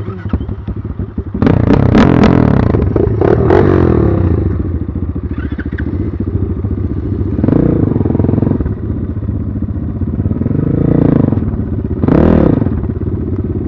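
BSE Z6 enduro motorcycle engine under way, revving up and falling back several times. About a second and a half in comes a couple of seconds of loud clattering and knocking, the loudest part.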